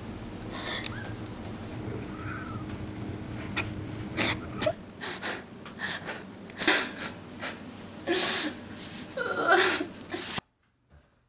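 A loud, steady, piercing high-pitched electronic whine, typical of a horror sound effect, over crackles of static, slowly growing louder. Near the end a voice cries out, and everything cuts off suddenly about ten seconds in.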